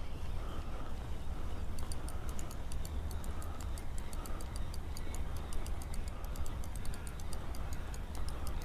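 Fishing reel clicking rapidly, starting about two seconds in, as a fish is played on a feeder rod. Under it runs a steady low rumble of wind on the microphone.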